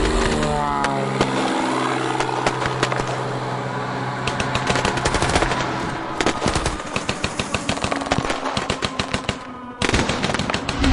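War sound effect of machine-gun fire: a falling tone and a steady low drone first, then rapid, sustained automatic fire. The shooting dips briefly near the end before a loud new burst.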